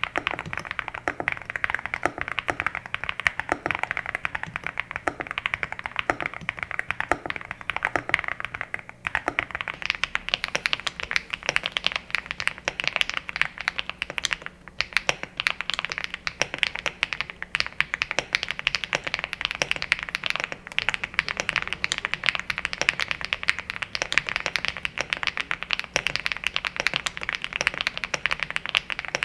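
EVO80 80% custom mechanical keyboard with HMX Azure switches on an FR4 plate being typed on continuously: a dense, fast run of sharp keystroke clacks with only brief pauses.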